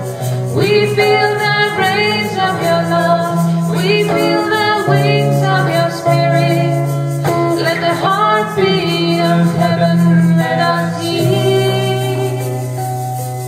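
Live devotional song: a woman singing a slow melody over long held harmonium chords, with a light shaker keeping time.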